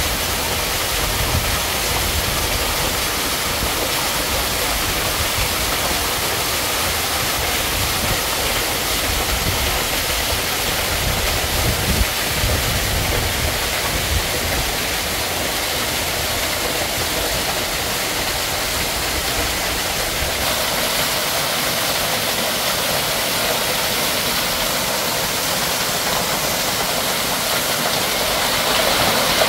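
Small waterfall pouring onto rocks and shallow water: a steady rush of splashing water. A low uneven rumble runs under it through the first half, with a brief knock about twelve seconds in.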